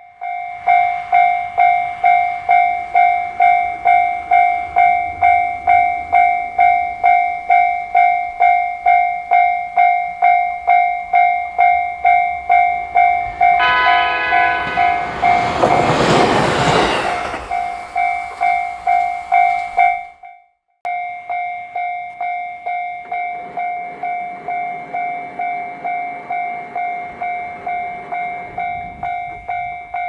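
Japanese level-crossing alarm ringing about twice a second. About halfway through, a JR Hokkaido H100 (DECMO) diesel-electric railcar sounds its horn briefly and then passes close by with loud engine and wheel noise. The alarm breaks off for a moment near two-thirds of the way in, then rings on more quietly.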